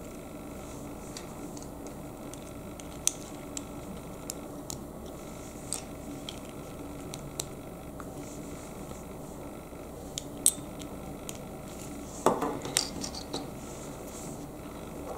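Small plastic Lego bricks clicking as they are pressed together and handled. There are scattered sharp single clicks, one much louder about ten seconds in, and a quick cluster of clicks and knocks near the end.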